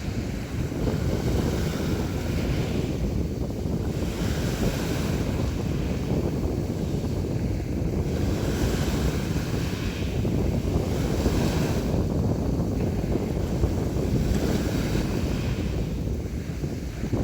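Sea waves washing and splashing ashore, surging every two to three seconds over a steady rush, with wind rumbling on the microphone.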